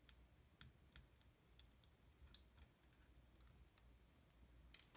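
Near silence with faint, irregularly spaced small clicks: a Phillips screwdriver and small screws being worked out of a Contax RX camera body.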